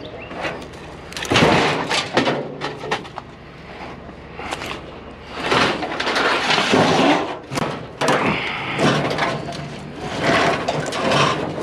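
Knocks, clatter and scraping as chairs are shifted and stacked on a loaded trailer, in several bursts of a second or two.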